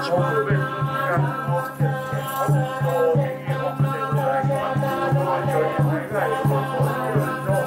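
Buddhist mantra chanting by a group of voices during a goma fire ritual for Fudo Myoo, over a steady drum beat of about three to four strokes a second, with a rattling percussion mixed in.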